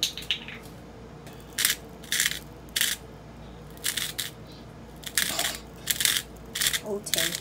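Salt grinder being twisted to grind Himalayan pink salt: about nine short grinds in quick succession, in uneven groups.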